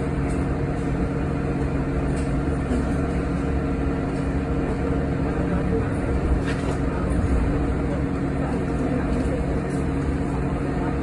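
Cabin noise aboard a Yutong ZK6128BEVG battery-electric bus: a steady hum with several held low tones over a constant haze.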